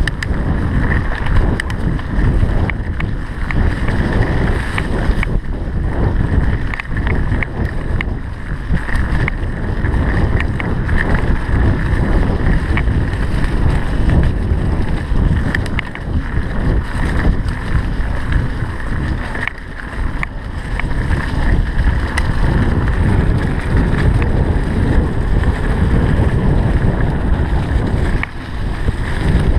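Mountain bike descending rough singletrack: wind buffeting the microphone over a continuous rumble of tyres on dirt, with frequent clicks and rattles from the bike over bumps.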